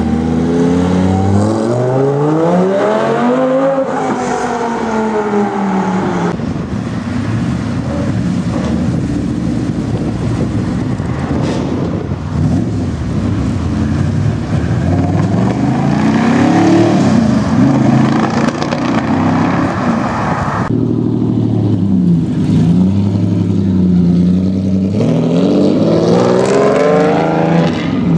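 Supercar engines accelerating away one after another, each note climbing in pitch as the car pulls off; the first is a Lamborghini Gallardo Spyder's V10. The sound changes abruptly twice as one car gives way to the next.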